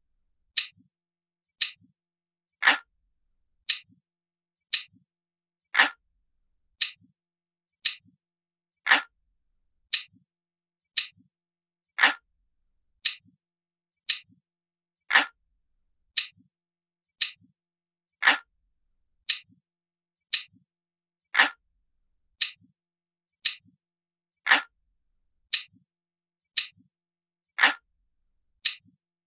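Glass-like clock ticking sound effect of a countdown timer: crisp, single ticks about once a second with silence between, every third tick a little louder.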